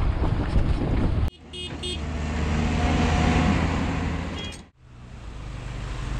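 Yamaha motorcycle engine running with wind and road noise, heard from the rider's camera, in short clips joined by abrupt cuts about a second in and again near the end. A few brief high-pitched tones sound in the middle clip.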